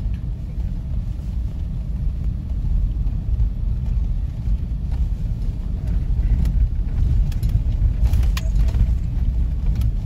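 Low road rumble heard inside a moving car as its tyres run over a rutted, frozen snow-packed road, with a few sharp knocks and rattles from the jolts in the second half.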